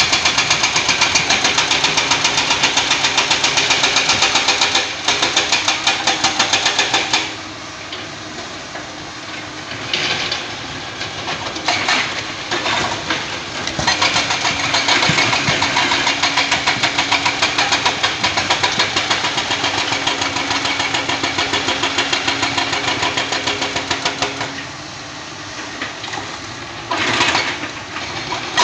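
Diesel engines of hydraulic excavators working a rock face, running hard with a fast, even pulsing. The sound drops quieter about a quarter of the way in, comes back with a few short knocks, runs loud again through the middle, and dips once more near the end.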